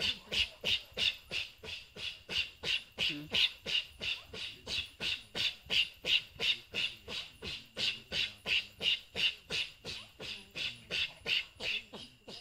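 Group of women chanting rhythmic breathy "fu" blows in unison, about three a second, as they whirl in pairs in the Goan fugdi dance.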